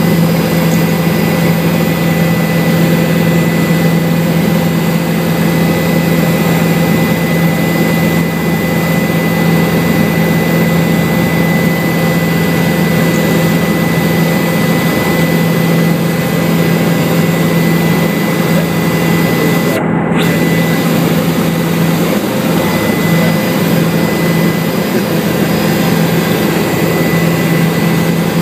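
Helicopter cabin noise: the turbine engine and rotor running steadily and loudly, with a deep hum and a thin steady whine over it.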